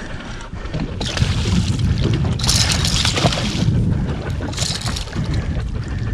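Water splashing around a small aluminium boat, with wind rumbling over the microphone; the splashing comes in three bursts of hiss, about a second, two and a half seconds and four and a half seconds in.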